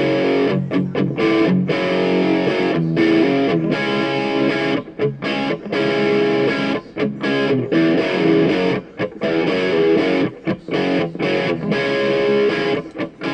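Outro music: a rock track led by distorted electric guitar, with a steady rhythmic chop.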